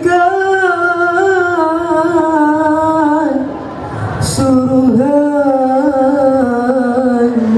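Boys' nasyid group singing through microphones: two long, drawn-out phrases, each gliding down in pitch at its end, with a short break between them about halfway through.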